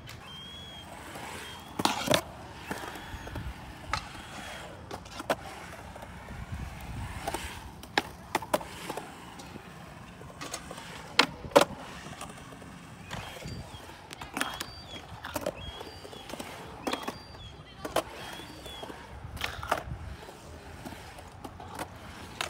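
Skateboard wheels rolling on concrete, broken by a series of sharp clacks and smacks as the board hits the ground and the walls of a concrete bowl. The loudest hits come about two seconds in and again around the middle.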